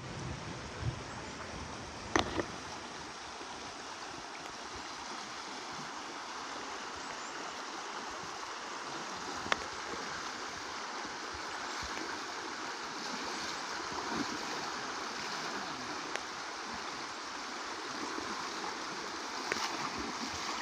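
Shallow, fast-flowing river rushing steadily over its bed, with a strong current.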